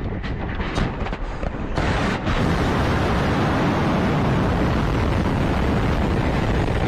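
RS-28 Sarmat ICBM launching from its silo: crackling noise at first, then about two seconds in a sudden, steady heavy roar as the rocket motor fires.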